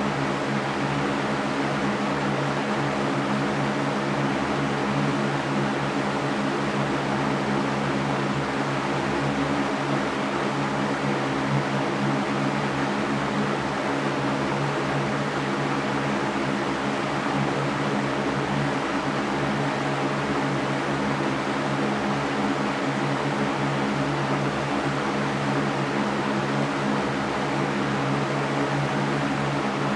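Electric fan running steadily: an even rushing noise with a low steady hum.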